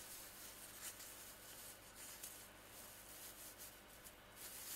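Near silence: room tone with faint soft rubbing and a couple of light ticks as a small plastic animal figure is turned by hand on artificial turf.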